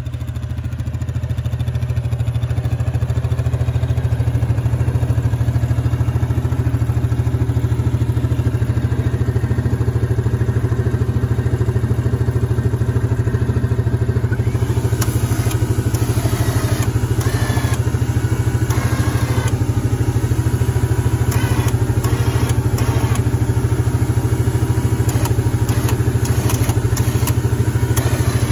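Yamaha Grizzly 700 ATV's single-cylinder four-stroke engine idling steadily. From about halfway on, scattered metal clicks and clanks sound over it.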